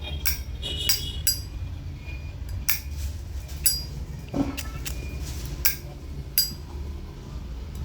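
Vintage 1973 brass Zippo lighter's lid being flipped open and snapped shut, a series of sharp metallic clicks with a short bright ring, about one a second. The click is clear, neither loud nor soft.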